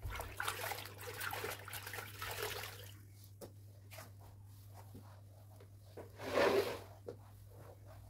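A cleaning cloth being worked in a plastic bucket of soapy water, with water sloshing and trickling for the first three seconds. Then the cloth is wiped over the floor, with one louder swish about six and a half seconds in.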